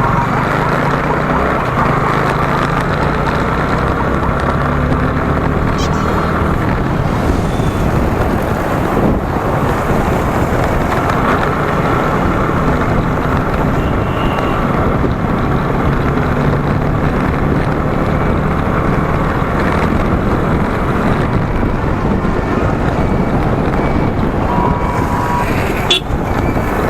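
Motorcycle engine running at riding speed under loud wind rush on the microphone, with road traffic around it.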